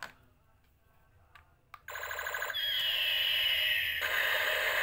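Battery-operated light-up toy pistol's electronic sound effect. A few light plastic clicks come first, then a fast pulsing electronic buzz starts about two seconds in, a falling whine runs over it, and it goes into a rapid electronic rattle.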